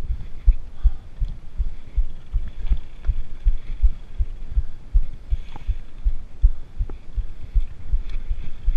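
Mountain bike rolling down a rocky dirt singletrack, picked up by a camera mounted on the rider: irregular low thumps about two or three a second as the tyres and frame jolt over rocks and roots, with a few light clicks.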